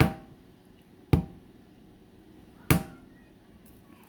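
A balut egg knocked three times against a hard surface to crack its shell. Each knock is sharp, with a short ring after it, about a second and a half apart.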